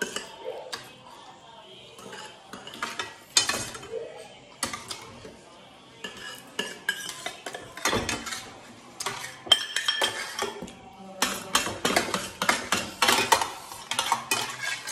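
Steel spoons clinking and scraping against stainless-steel plates and bowls during eating. The clinks come in a scattered run that grows denser and louder over the last few seconds.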